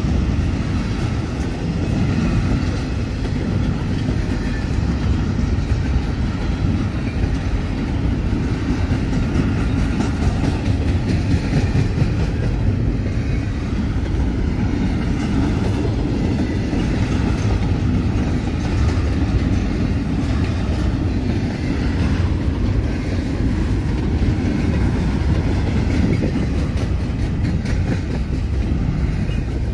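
Double-stack intermodal freight train passing steadily, its loaded container well cars rolling by on the rails.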